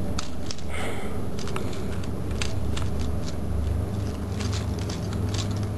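Light clicks and rattles of a plastic Transformers action figure and its Mechtech weapon being handled, over a steady low rumble.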